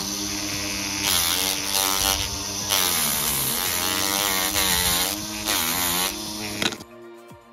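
Tamiya Type 380 Sport-Tuned DC motor spinning a sandpaper drum, a steady electric whine whose pitch sags and recovers each time the drum is pressed against a strip of wood, with rasping sanding hiss at those moments. The motor cuts off near the end.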